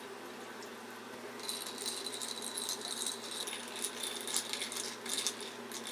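Ice cubes clinking and rattling against a drinking glass as iced coffee with milk is stirred, starting about a second and a half in: a quick, irregular run of bright clinks.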